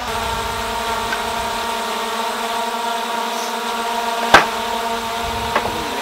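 A steady mechanical hum, like a small motor running at constant speed, with one sharp knock about four seconds in and a lighter one a second later.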